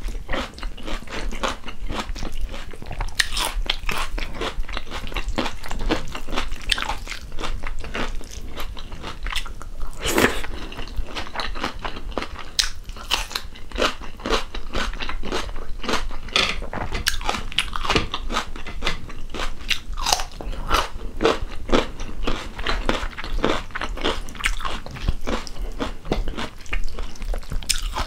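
Close-miked chewing and mouth noises of a person eating rice and chicken stew by hand: an irregular, continuous run of smacks and clicks.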